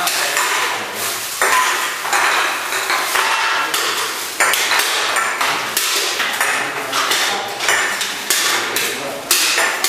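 Empty aluminium drink cans clinking and knocking together as they are handled and stacked: an irregular run of metallic knocks and short pings, with a few louder clatters.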